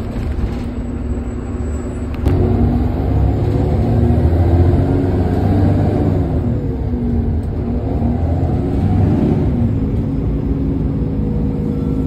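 Irisbus Agora L articulated city bus engine accelerating hard on kickdown. The loudness jumps suddenly about two seconds in, and the engine note rises and dips as the bus pulls away.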